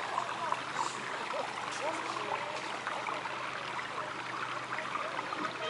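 Running, trickling water in a seal pool, with faint chatter of people's voices in the background.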